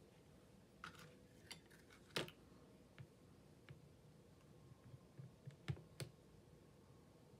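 Near silence broken by a few faint, sharp clicks and taps at uneven intervals, from paper and craft supplies being handled on a cutting mat.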